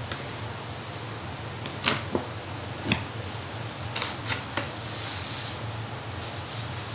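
A scatter of sharp clicks and knocks, several in quick succession, as small objects are handled on a work surface, over a steady low hum.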